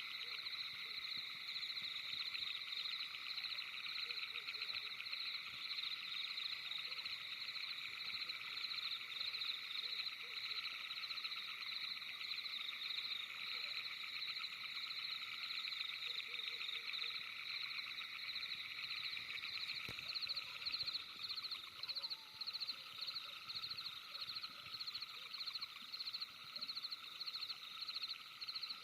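Night-time chorus of calling frogs or insects: a steady, high, rapidly pulsing trill, its beat growing more distinct in the later part.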